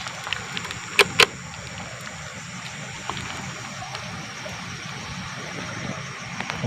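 Steady background hum with a thin high whine running through it, broken by two sharp clicks about a second in.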